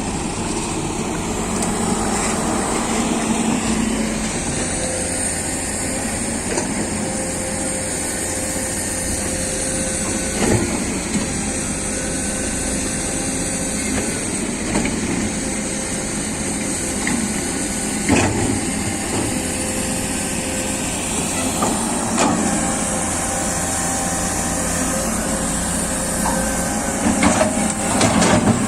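Komatsu PC200 excavator's diesel engine running steadily as it works, with a few sharp knocks and clanks scattered through and a quick cluster of them near the end.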